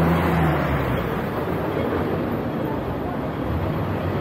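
City street traffic: a vehicle passing close by with a low engine hum that fades about half a second in, over steady road noise.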